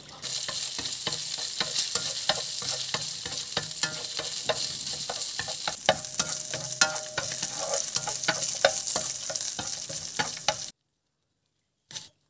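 Food sizzling in a hot pan as it is stirred, with frequent clicks and scrapes of a utensil against the pan. The sizzling cuts off abruptly near the end.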